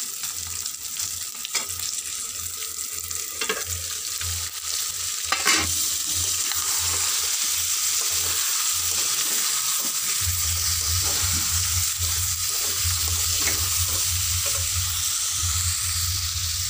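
Fish steaks and pieces of chicken with potatoes sizzling in hot oil in a pan, with a few scrapes of a metal ladle against the pan, over a low hum.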